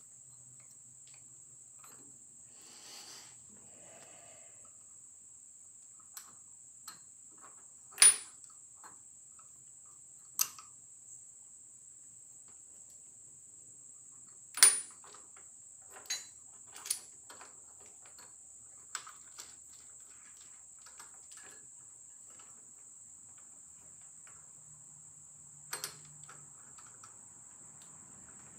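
Scattered metal clicks, taps and clinks as a small steel shaft and clamp are handled and aligned on a milling machine table, with two sharp knocks louder than the rest. A faint steady high whine runs underneath.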